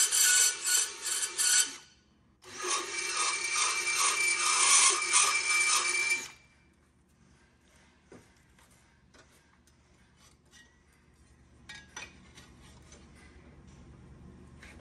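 Cordless drill spinning a carbide bit to enlarge the holes in a steel steering-box support plate held in a vise: a harsh, high grinding that runs about two seconds, breaks off briefly, then runs about four seconds more and stops. After that there are only a few faint clicks and handling sounds.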